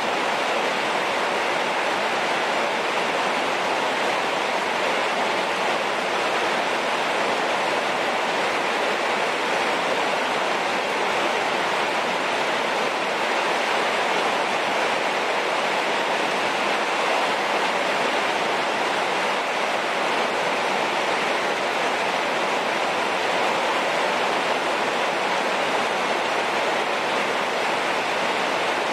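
Heavy rain falling, a steady, even rush of water with no let-up.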